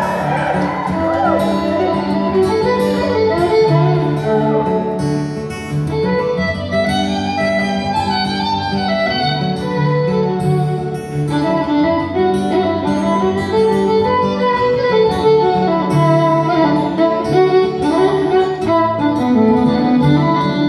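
Fiddle solo over acoustic guitar, played live: an instrumental break between verses of a country duet.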